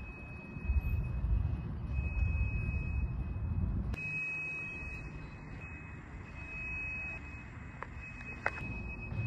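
A steady high-pitched electronic tone, held for a second or two at a time with short breaks, over a low rumble that fades about four seconds in; two faint clicks near the end.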